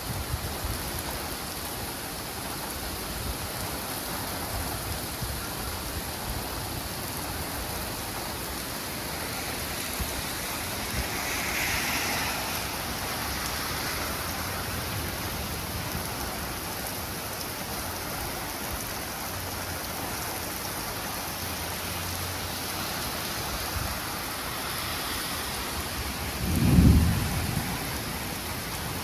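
Steady rain with a loud, short rumble of thunder a couple of seconds before the end.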